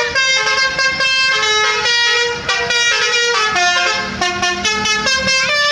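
Bus basuri telolet horn playing a tune: a quick run of loud horn notes, each held briefly and stepping up and down in pitch, with a short rising slide near the end.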